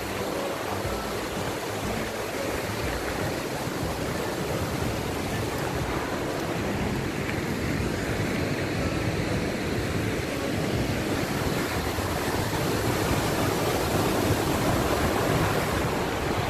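Steady rushing of a fast river running over rapids, with wind buffeting the microphone; it grows a little louder in the second half.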